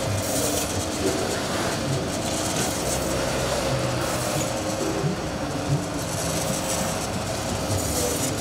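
Small stainless-steel automatic cracker-slicing machine running: its electric motor drives a spinning disc blade through a log of raw cracker dough, a steady mechanical running noise with a faint hum.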